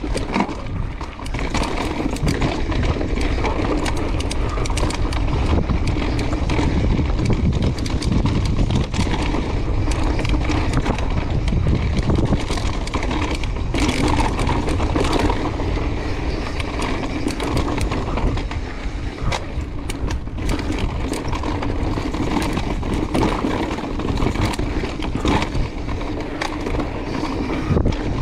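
Mountain bike rolling fast down a rocky dirt trail: tyres on dirt and loose rock under a steady low rumble, with frequent clatter and knocks from the bike over bumps.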